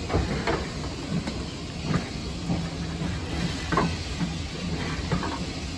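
Heritage railway passenger coaches rolling past close by: a steady low rumble broken by irregular wheel knocks and clacks over the rail joints.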